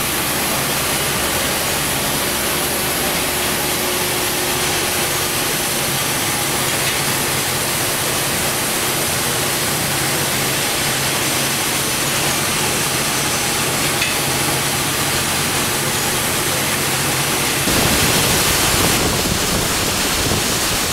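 The steamboat Natchez's steam engine running, a steady mechanical hum. Near the end it cuts to the rushing splash of the stern paddle wheel churning the river.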